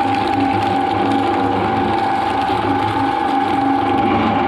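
Twin-shaft shredder running with a steady whine as its interlocking toothed rotors chew up a cactus stem into green fragments.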